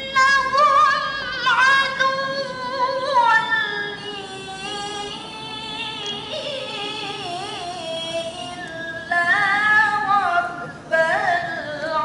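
A young woman reciting the Qur'an in the melodic tilawah style, her solo voice holding long notes ornamented with quick wavering turns. The pitch slides slowly down through the middle, rises again louder, and breaks briefly near the end.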